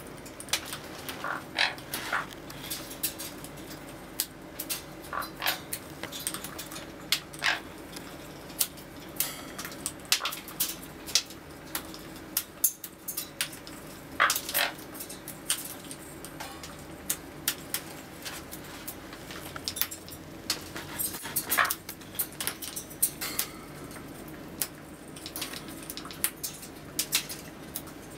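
A conure's beak tapping and clicking against a clear acrylic and wood foraging toy as it picks food out. The clicks are short and irregular, scattered throughout, over a faint steady background hum.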